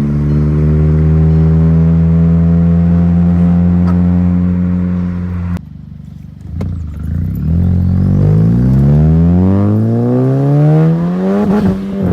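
Turbocharged four-cylinder engine of a Unitronic Stage 2 tuned MK6 Jetta GLI held at steady high revs on launch control for about five seconds, then dropping away. From about seven seconds in it climbs steadily in pitch under hard acceleration, with a brief dip near the end as it shifts gear before holding high again.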